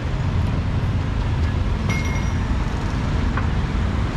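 Steady rumble of street traffic with motorbikes passing. About two seconds in, a short metallic clink rings briefly.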